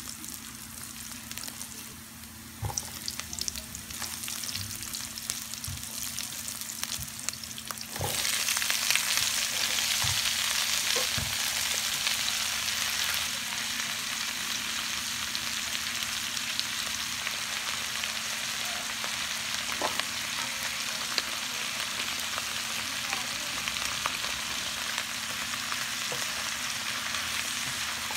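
Garlic sizzling in hot oil in a nonstick wok, stirred with a spatula that clicks against the pan now and then. About eight seconds in, the sizzling suddenly grows louder as broccoli, green beans and other vegetables go into the oil, and it stays steady after that.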